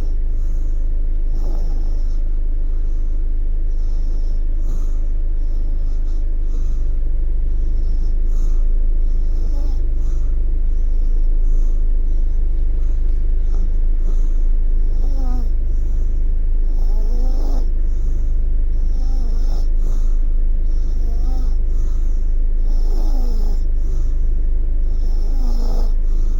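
A baby snoring in sleep, breath after breath, over a loud steady low hum. From about halfway through, several of the breaths carry a short rising squeak.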